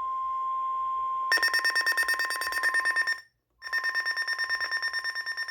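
Weather radio alert: the steady 1050 Hz NOAA Weather Radio warning tone, joined about a second in by the receiver's own alarm, a rapid shrill electronic beeping about seven times a second. The sound cuts out briefly around the middle, and the beeping resumes over the tone.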